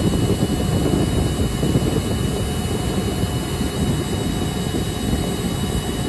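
Steady drone of rooftop HVAC machinery, a rushing, rumbling noise like running fans, with a faint steady high tone over it.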